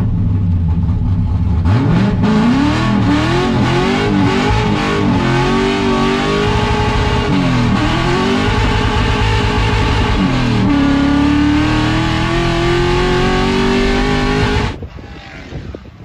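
Drift car's engine revving hard under power, its pitch swinging up and down again and again as the car is drifted, then held high and climbing slowly. It drops away suddenly near the end to a quieter background with wind on the microphone.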